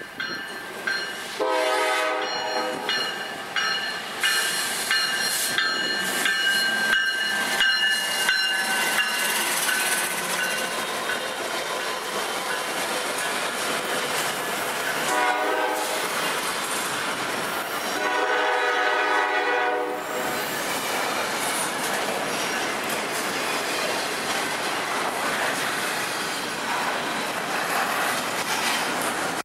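Norfolk Southern diesel freight locomotive sounding its air horn in three blasts, a short one about two seconds in, another around fifteen seconds and a longer one just before twenty seconds, over the steady rolling noise of the freight train passing close by. The cars clickety-clack over the rail joints, with a thin high wheel squeal over the first ten seconds or so.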